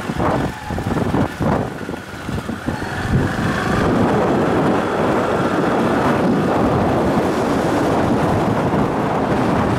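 Moving motorcycle: wind buffeting the microphone over the bike's engine and road noise, gusty for the first few seconds, then a steady rush.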